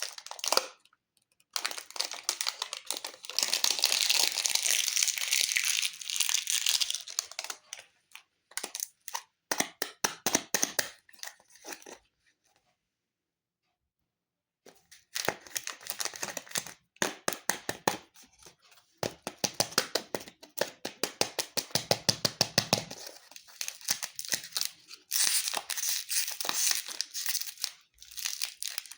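Crinkly plastic candy wrappers being torn and crumpled in quick crackling strokes, in several bursts with a silent gap of about two seconds near the middle.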